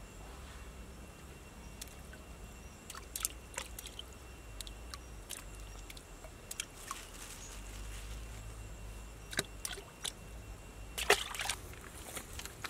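Hands packing and smoothing wet mud and sand: scattered short wet squishes and pats, the loudest cluster near the end.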